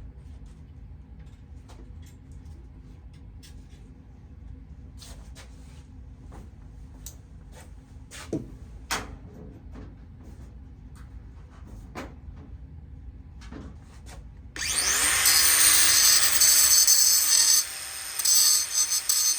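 A few scattered light knocks and clicks of handling, then an angle grinder spins up with a rising whine about two-thirds of the way in and grinds into sheet steel, loud and steady. It eases off briefly near the end and then cuts again.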